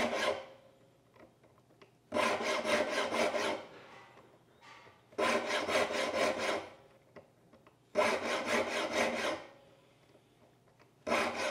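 Saw file rasping across the teeth of a crosscut hand saw held in a saw vise, sharpening it: bursts of quick back-and-forth strokes about every three seconds with near quiet between, each burst one tooth getting three strokes, the file dragged back on the teeth between pushes.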